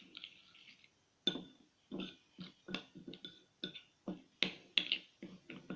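Squeezing lemon into ground coffee and mixing them by hand: about a dozen short wet clicks and squelches at irregular intervals, the loudest about four and a half seconds in.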